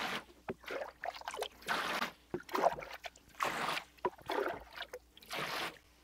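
Water sloshing and splashing in a glass tank as a plastic jug is dipped in and lifted out full, in a run of short splashy bursts with a few knocks.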